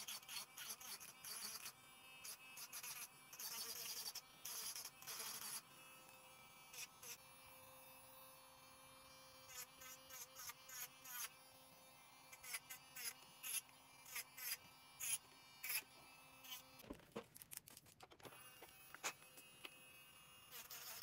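Electric nail drill (e-file) running with a steady high buzz, broken by repeated short bursts of grinding noise as the bit works the acrylic nails.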